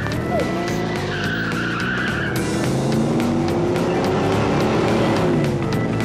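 A car engine revving as it drives past, its pitch rising and falling, over rock music with a steady beat.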